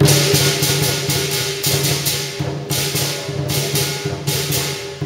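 Lion dance percussion striking up suddenly: a big drum beating with cymbals clashing again and again over a steady ringing hum.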